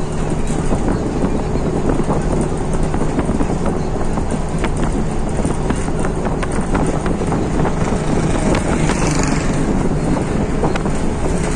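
A moving road vehicle heard from inside the cabin: a steady rumble of engine and road noise with a low hum and scattered small rattles and clicks.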